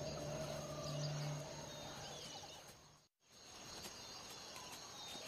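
Faint bush ambience with scattered bird chirps and insect sounds. A low steady hum fades out about a second and a half in, and the sound drops out completely for a moment just after three seconds before the ambience returns.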